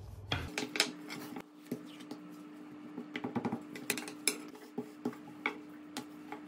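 Wooden rolling pin knocking and clicking on a silicone baking mat as dough is rolled out thin: irregular sharp taps, the loudest about a second in and near the middle.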